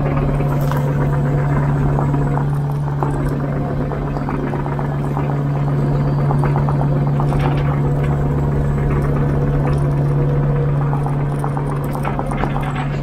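Kubota KX057-4 mini excavator's diesel engine running steadily as the machine travels on its tracks, with a constant low drone and frequent clicking and clattering throughout.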